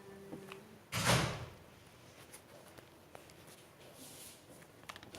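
A single short thump about a second in, fading over about half a second, with a few faint small clicks and knocks around it.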